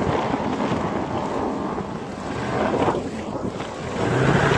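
Pickup truck driving through deep snow: the tyres churn and crunch through packed snow with the engine running under load, and wind buffets the microphone. It grows louder near the end.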